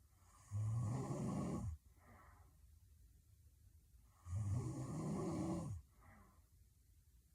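A woman snoring heavily in her sleep: two loud snores about four seconds apart, each lasting just over a second, each followed by a short, fainter breath.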